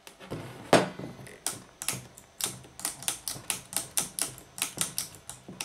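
Short spray hiss from an aerosol can of WD-40 near the start, then a knock. After that come sharp plastic clicks, about four a second, as the push-button switches on an old graphic equalizer's front panel are pressed over and over to work the WD-40 into their contacts.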